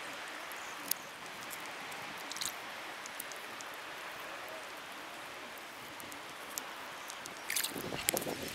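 Steady trickling and lapping of shallow water over a rocky reef, with scattered small ticks and clicks. A few louder splashes and knocks come near the end.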